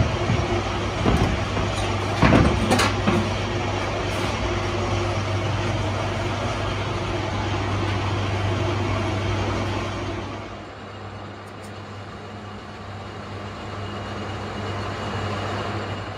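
Manual metal lathe running with a steady low hum and machine noise, with a few sharp metal clunks in the first three seconds as its headstock levers are worked. The running noise drops away about ten seconds in.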